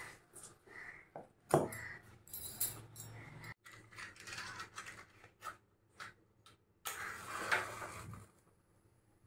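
Kitchen utensils and cookware clinking, knocking and scraping in irregular bursts, with one sharp clank about one and a half seconds in.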